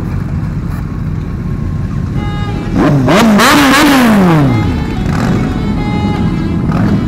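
Motorcycle engine idling with a steady rumble. About three seconds in it is revved in several quick rises and falls, then the revs sink back down to idle.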